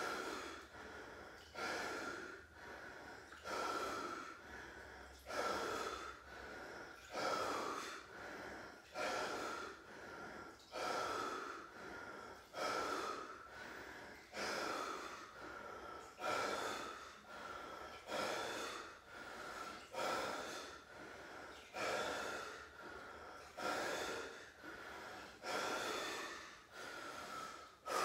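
A man breathing hard and rhythmically while sitting in an ice bath, taking a deep breath about every two seconds. Each breath starts sharply and fades: paced, forceful breathing against the cold.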